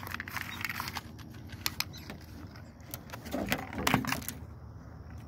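Metal tape measure being handled and its blade pulled out: scattered small clicks and rattles, with a louder cluster of knocks and handling noise around three to four seconds in.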